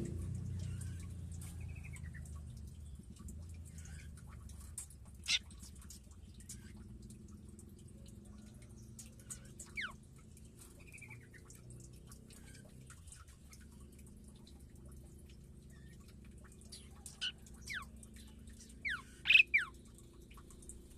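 Caged birds calling sparsely: scattered short chirps and a few quick falling whistles, with a louder cluster near the end, over a faint low hum.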